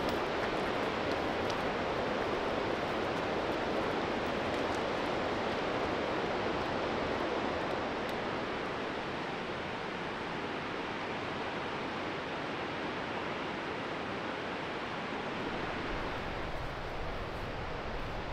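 Steady rush of running water from a mountain stream, easing slightly about eight seconds in.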